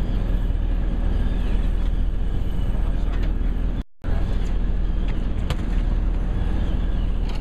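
Party fishing boat's engine running at idle, a steady low rumble, with faint voices of the anglers over it. The sound cuts out for a moment a little over halfway through.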